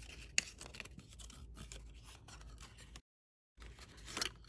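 Cardboard packaging of a speed cube being handled and slid open: papery rubbing and scraping with small clicks, a sharper tick about half a second in and a louder scrape near the end. The sound drops to dead silence for about half a second near three seconds in.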